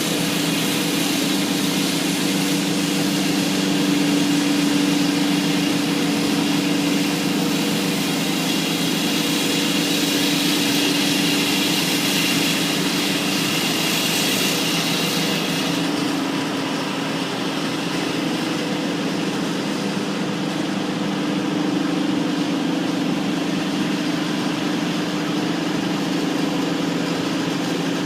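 Concrete saw running steadily: a constant engine drone under a high hiss of the blade cutting. About halfway through the hiss drops away abruptly, and the engine keeps running.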